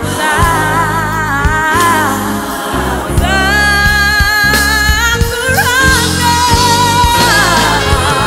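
Live gospel song: a woman sings the lead with a wavering vibrato over a band with keyboards, drums and guitars. About three seconds in, more voices join in harmony and the music grows louder.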